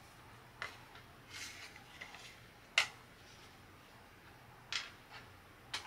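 Small craft parts being handled on a wooden tabletop: a few short, sharp taps and clicks as pieces are set down, the loudest about halfway through, with a soft papery rustle of a card panel between them.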